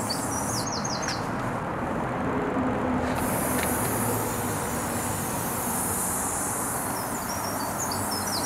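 Aerosol spray paint can hissing as paint goes onto a brick wall: a long steady hiss, faint at first and much stronger from about three seconds in until near the end. Birds chirp briefly at the start and again near the end, over a low steady hum.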